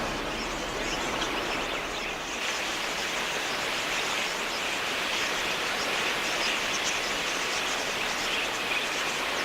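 Steady outdoor nature ambience: a dense, even wash of sound, strongest in the upper-middle range, with faint rapid ticking high above it.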